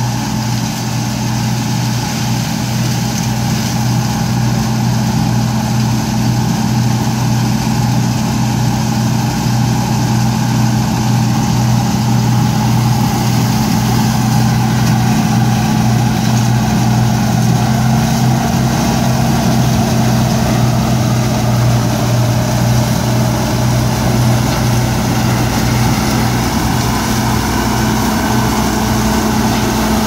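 John Deere 4420 combine running steadily while harvesting corn: a constant engine and machinery hum with a strong low tone.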